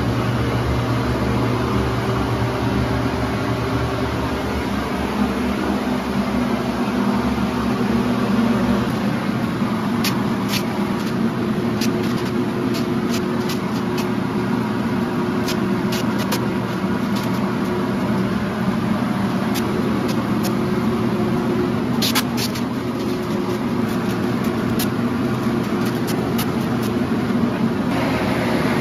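Steady drone of an air blower from the ventilation and fresh-air setup used while chemically stripping a tub. Scattered light clicks and taps from about ten seconds in.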